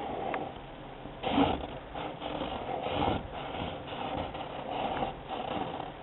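Sanford Sharpie marker tip rubbing and squeaking across paper in short strokes as letters are drawn, the strongest stroke about one and a half seconds in.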